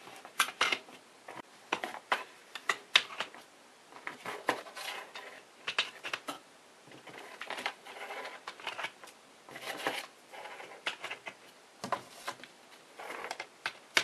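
USB-A plugs being pushed one after another into the ports of a Hillpow 6-port USB charging station: a series of small plastic clicks and taps, with the cables brushing and rustling against the desk in between.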